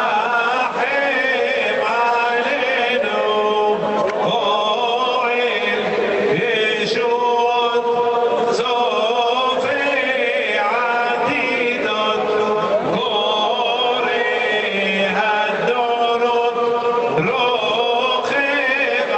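A huge crowd of worshippers chanting Selichot penitential prayers together, a mass of mostly men's voices singing in unison.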